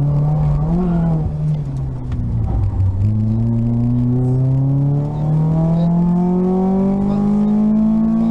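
VW Lupo GTI rally car's 1.6-litre four-cylinder engine heard from inside the cabin: low and off the throttle through a slow corner, with a brief rise in pitch about a second in, then accelerating hard with the engine note climbing steadily from about three seconds in.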